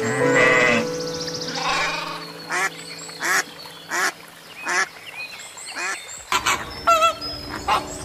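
Waterfowl quacking: short, sharp calls repeating about every 0.7 s, then coming faster and busier near the end, over soft background music.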